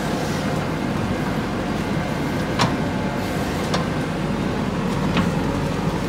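JCB backhoe loader's diesel engine running steadily while the backhoe arm works, with three sharp knocks about two and a half, three and a half and five seconds in.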